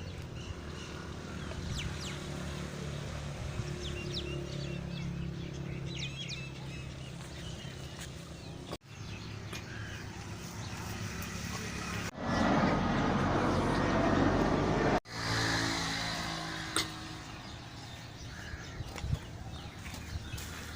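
Outdoor farm ambience: a steady low engine-like hum with birds chirping now and then. Partway through, a loud rushing noise lasts about three seconds and stops abruptly.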